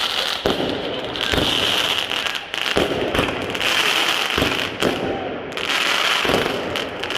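Fireworks going off: a run of irregular bangs over a continuous crackle.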